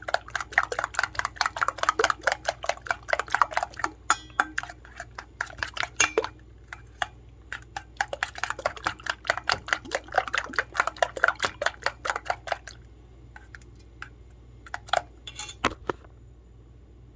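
Raw eggs with chopped pepper and onion being beaten briskly in a stainless steel bowl, the utensil clicking against the metal about five times a second. The beating stops briefly about four seconds in, starts again, and after about twelve seconds slows to a few scattered taps.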